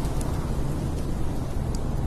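Steady low rumble of storm wind, with a couple of faint crackles from a wood fire.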